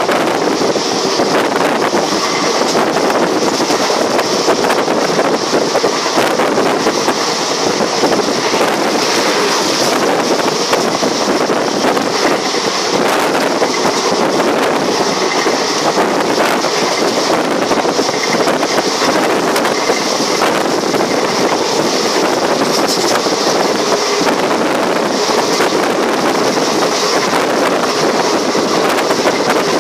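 Steady running noise of a moving train with wind buffeting the microphone; a high hiss swells and fades every second or two.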